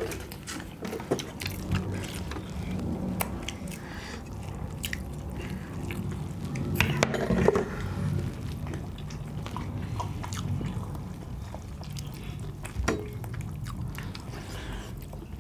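Wet eating sounds: chewing and lip smacking on chicken curry and rice, with many scattered small clicks.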